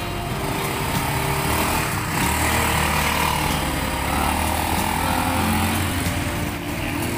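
The 200cc engine of an Apollo Commander 200 ATV running. It grows louder about two seconds in as the quad pulls away under throttle, then eases a little as it rides off.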